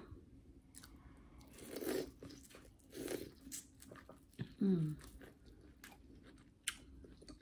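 Biting into a sauce-coated corn on the cob and chewing it, with wet crunching mouth sounds close to the microphone.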